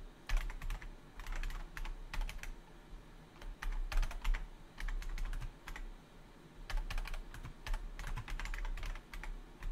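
Typing on a computer keyboard: quick bursts of key clicks with short pauses between them, over a steady low hum.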